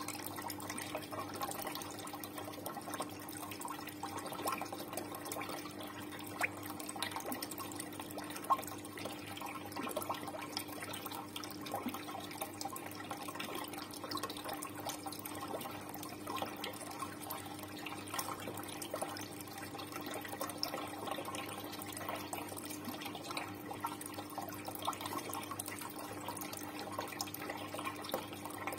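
Water running and trickling steadily in a fish pond, with many small drips and splashes and a steady hum underneath.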